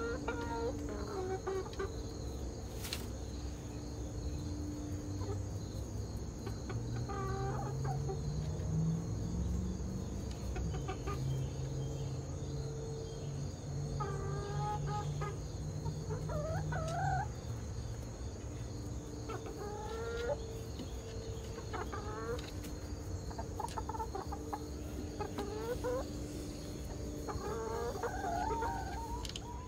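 Domestic hens clucking and calling in short phrases that glide up and down in pitch, a few seconds apart. A low steady drone runs under the calls for about ten seconds in the middle.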